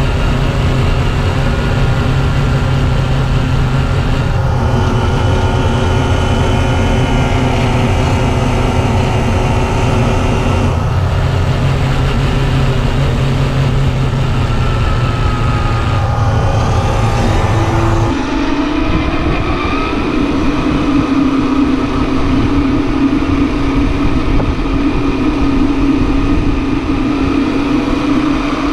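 A motor vehicle engine running steadily with a deep hum; about two-thirds of the way in, the sound changes abruptly, the deep hum dropping away and a higher steady drone taking over.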